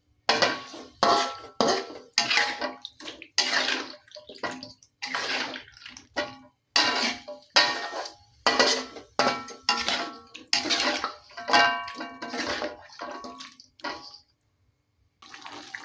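A metal utensil repeatedly stirring and knocking against a pan of wet food, a stroke every half second to a second with a metallic ring. The strokes pause for about a second near the end.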